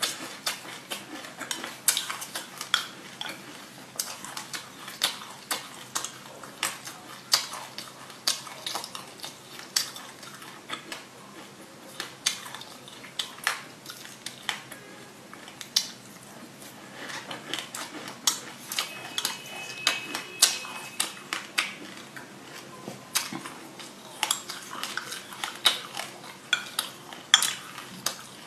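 Metal spoon clinking and scraping against a glass mug in many sharp, irregular clicks, several a second, as black sesame seeds mixed with passion fruit pulp are scooped out.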